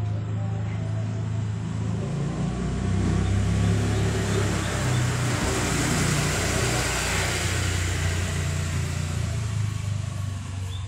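A motor vehicle passing by: a steady engine hum with its noise swelling to a peak about midway and easing off again.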